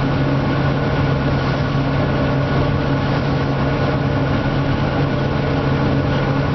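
Diesel engine of harvest machinery running steadily at constant speed, a deep even hum.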